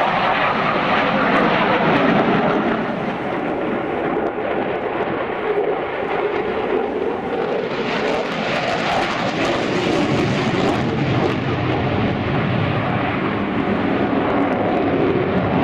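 Eurofighter Typhoon's twin jet engines flying past, a continuous rushing jet noise that turns brighter and harsher for a few seconds about eight seconds in.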